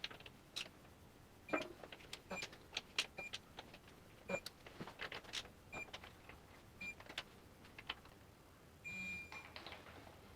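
Workshop sounds: a string of small metallic clicks and taps from tools and parts being handled. About 9 s in there is one short whir of a small electric motor, like a cordless power tool spinning briefly.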